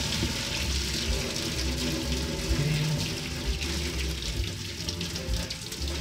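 Pasta cooking water pouring from a tilted stainless steel pot through a plastic colander into a steel sink, a steady splashing stream as the fusilli drain, easing off somewhat in the second half.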